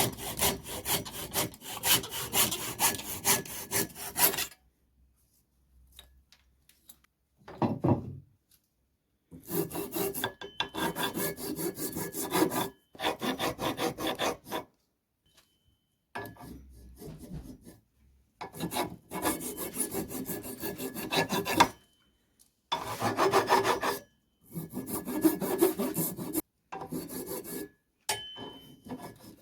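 Hand rasp shaping a wooden ax handle, in runs of quick back-and-forth strokes with short pauses between runs.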